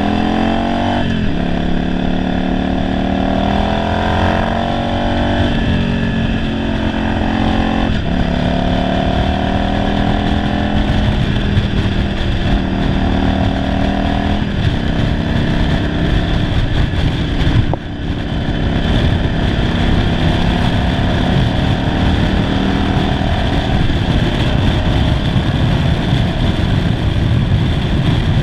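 Yamaha Virago 750 V-twin engine under way, heard from the saddle. Its pitch climbs and drops back at each upshift, three times in the first eight seconds, then holds roughly steady at cruising speed with a low rush of wind on the microphone. The owner says this single-carb-converted engine is running poorly.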